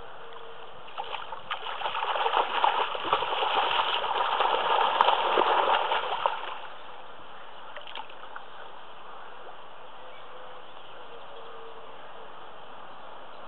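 Spawning carp thrashing in the shallows at the bank: a burst of splashing that starts about a second in, lasts about five seconds and dies away.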